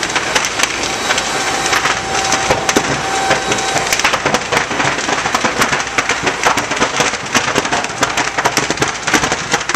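Burning house timbers crackling and popping in a dense, steady run over a roar of flames.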